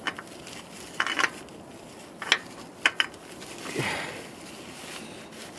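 A few light clicks and scrapes as a gloved hand threads a new spin-on oil filter onto its mount, with a longer rustle about four seconds in.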